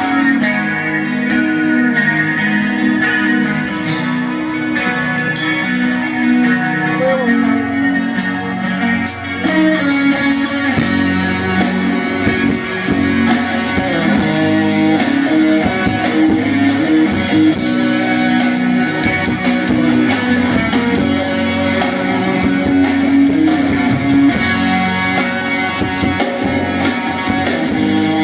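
A live rock band plays an instrumental intro: electric guitar with a drum kit keeping a steady beat, which fills out about ten seconds in.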